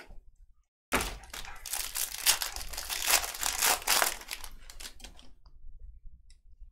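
Trading card pack wrapper being torn open and crinkled: a sudden burst of crackling starts about a second in, runs for about four seconds, then thins out into a few small crinkles.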